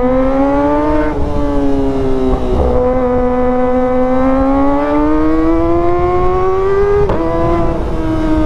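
Kawasaki ZX-25R's 250 cc inline-four engine pulling at high revs while riding. Its pitch climbs slowly, with brief breaks where it drops at gear shifts about a second in, at about two and a half seconds, and again about seven seconds in.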